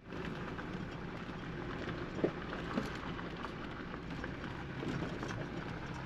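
Jeep driving on a rough gravel road, heard from inside the cab: the engine runs low under a steady crunch and patter of tyres on gravel, with a couple of small knocks a couple of seconds in.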